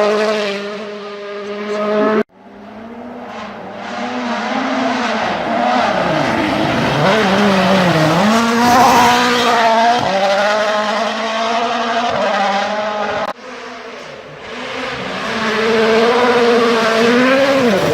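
Rally car engines at full throttle, revving up and down through gear changes as the cars approach and pass. The sound drops out abruptly twice, about two seconds in and near the end, and grows louder again after each drop.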